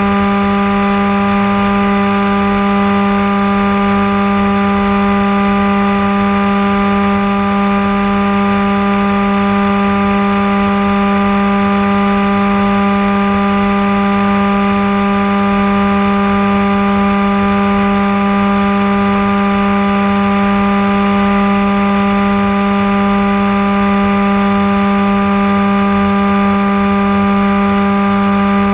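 Motor and propeller of an FPV radio-controlled flying wing, heard onboard, running at a steady throttle: a constant, unchanging drone with overtones over a low rush of air.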